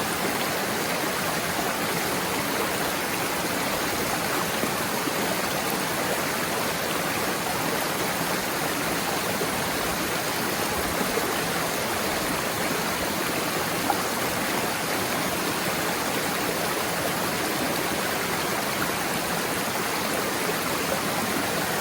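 Waterfall and stream water rushing in a steady, even roar of white-noise-like splashing, with no change throughout.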